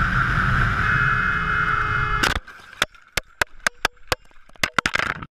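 Sport motorcycle running at speed with a steady engine note and rumble, then about two seconds in a loud crash impact, followed by about a dozen sharp knocks and clatters as it tumbles along the road. The sound cuts off abruptly near the end.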